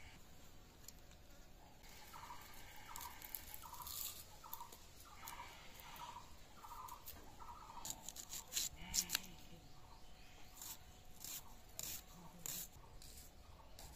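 A bird calls over and over, about one and a half calls a second, for several seconds. After that a red onion is sliced against a bonti blade, in a run of sharp, crisp cuts.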